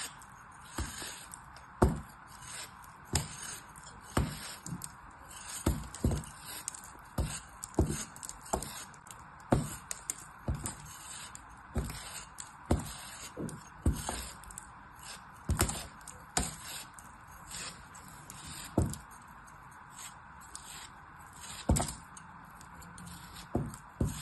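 A thin metal blade slicing through a packed block of kinetic sand: short crunchy cuts at an uneven pace, roughly one or two a second.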